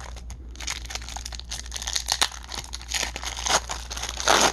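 Wrapper of a 1994 Fleer baseball card pack crinkling and tearing as it is ripped open by hand, with the loudest crackle near the end.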